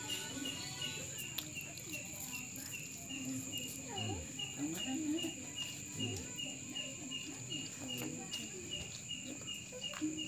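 A cricket chirping in a steady, even rhythm, about two to three short high chirps a second, over a constant thin high-pitched ringing. Soft chewing sounds come and go beneath it.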